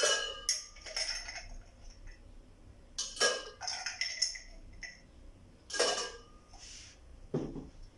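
Ice cubes spooned into a drinks container with a metal spoon, clinking. There are a series of separate sharp clinks, in small groups a couple of seconds apart.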